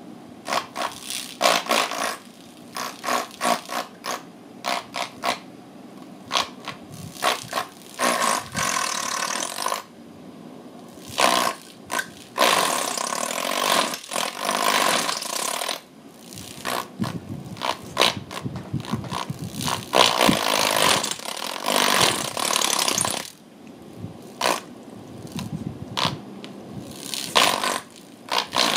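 Hard plastic clicking and scraping of a small ball-shaped electric fan as a cat paws at it and shoves the ball around in its wire stand. The first several seconds are quick separate clicks and knocks; after that come longer stretches of scraping with short pauses.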